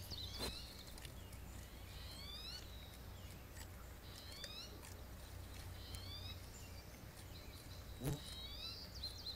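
Short, high, rising animal calls in small groups of two or three, repeating about every two seconds. A sharp knock or snap comes about eight seconds in.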